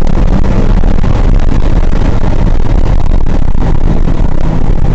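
Steady, loud rumble of a car driving at speed, heard from inside the cabin: road, wind and engine noise, distorted by an overloaded microphone. It neither rises nor falls, with no revving or passing sound.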